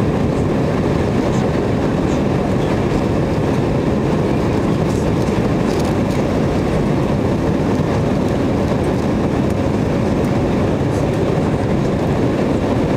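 Steady cabin noise inside a McDonnell Douglas MD-88 airliner in descent: the rumble of its rear-mounted Pratt & Whitney JT8D turbofans mixed with airflow over the fuselage. It stays loud and even, with a few faint ticks.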